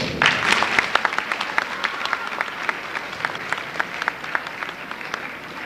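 Audience applauding in a school auditorium, a burst of many hands clapping that begins sharply and gradually dies away.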